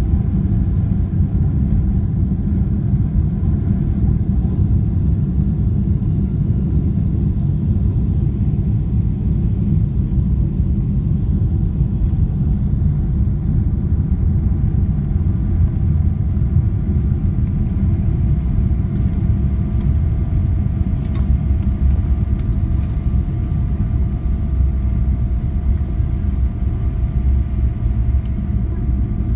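Steady low rumble heard inside the cabin of a Boeing 777-300ER rolling along the runway just after landing, from the landing gear on the tarmac and the GE90 engines. A few faint steady engine tones become clearer about halfway through.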